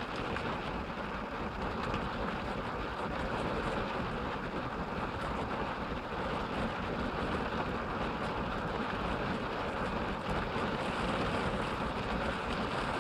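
Steady rain falling on a minivan's roof and windshield, heard from inside the cabin as an even hiss with faint ticks of drops on the glass.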